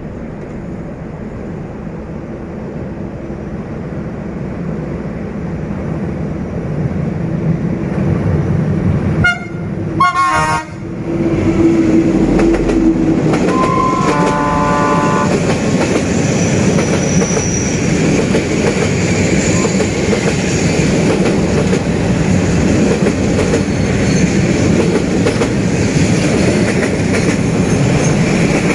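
Diesel-hauled passenger train crossing a railway bridge: the rumble builds over the first ten seconds, the locomotive's horn sounds around the middle, then the train passes with a loud, steady rumble and wheel clatter.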